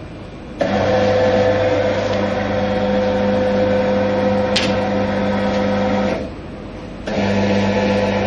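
Conveyor belt motor of a QMAX NF-1 garment needle detector starting up and running with a steady hum while a garment is carried through for the auto level study. It stops at about six seconds and starts again about a second later, with one short click partway through.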